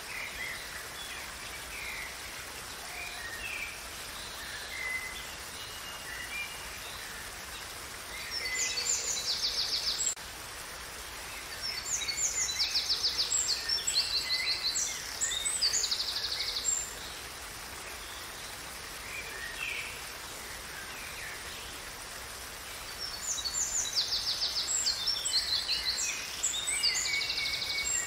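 Songbirds singing: scattered short chirps, and three louder bouts of rapid, high trilling phrases, about a third of the way in, in the middle, and near the end. Under them runs a steady faint rush of flowing water.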